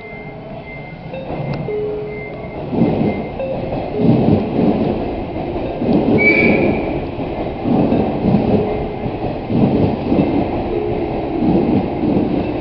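JNR 185-series electric train rolling into a platform, a heavy rumble with rhythmic thumps as its wheels pass over rail joints. It gives a brief horn toot partway through.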